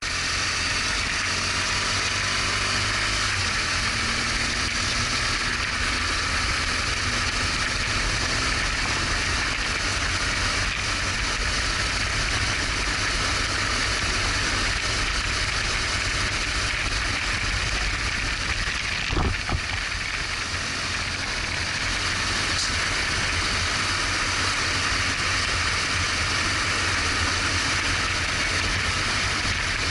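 BMW R1200GS Adventure's flat-twin engine running while riding, with steady wind and road noise over it. A single sharp knock about 19 seconds in.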